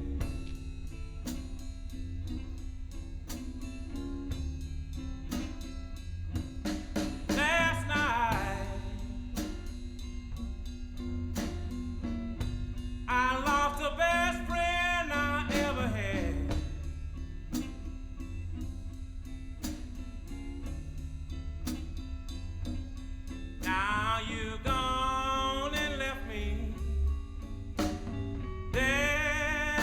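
Blues song with electric guitar, bass and drums keeping a steady beat, and wavering sung or guitar lines coming in a few times.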